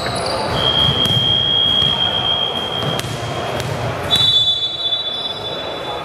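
A basketball bouncing a few times on a hardwood gym floor, echoing in the hall. A steady high-pitched tone runs through it and comes back a little higher about four seconds in.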